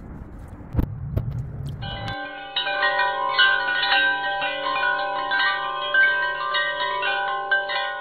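Rustling outdoor sound with a couple of knocks, then, about two seconds in, chimes start ringing: many overlapping bell-like tones struck at staggered moments and sustained, fading out at the end.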